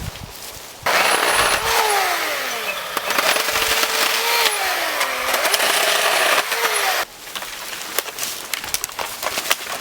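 A motorised saw runs for about six seconds, starting and stopping suddenly. Its pitch drops three times as it bogs down under load in a cut.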